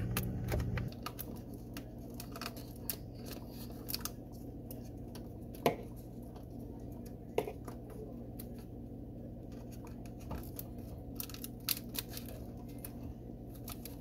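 Small clicks and scratches of plastic parts and wiring being handled as a refrigerator's thermistor housing is reattached and the wiring tucked back in, with two sharper clicks near the middle and a quick run of clicks near the end. A steady low hum runs underneath.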